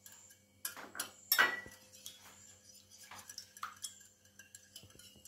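Metal utensil clinking irregularly against a bowl while beating eggs into milk, the sharpest clink about a second and a half in.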